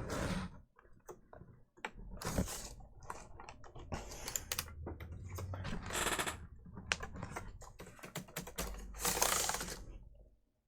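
Replacement Toshiba laptop keyboard being pressed down into the laptop's chassis: many quick plastic clicks and key clacks, with short stretches of rubbing and rattling as hands press and work it into place.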